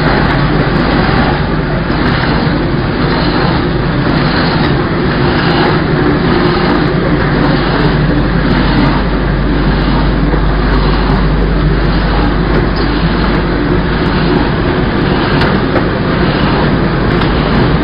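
Horizontal flow-wrap snack packing machine running steadily: a constant mechanical hum with a faint regular beat from its repeating wrap-and-seal cycle.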